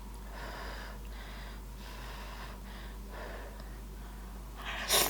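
A person breathing hard through the mouth around a piping-hot bite of food, in several soft puffs, then one sharp, louder breath near the end.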